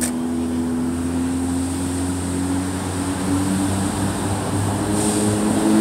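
Car engine and road noise heard from inside the cabin while driving, a steady drone whose hum rises slowly in pitch as the car gathers speed, with a brief click at the start.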